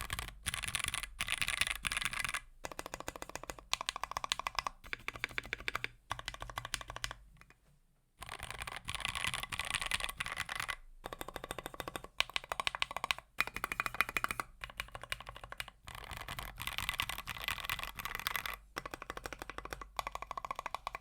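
Fast typing on a 60% mechanical keyboard with an aluminium plate and lubed C3 Tangerine linear switches: rapid runs of keystrokes in bursts of a few seconds, with short breaks and one longer pause about eight seconds in.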